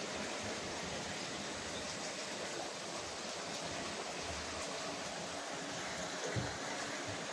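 Steady rushing noise from the running sludge dewatering plant, its pumps, motors and draining water, with a single short knock about six and a half seconds in.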